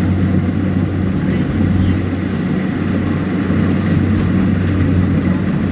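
Kubota DC-70 Plus rice combine harvester's diesel engine running steadily under load, a constant low drone with the rattle and hiss of the cutting and threshing machinery.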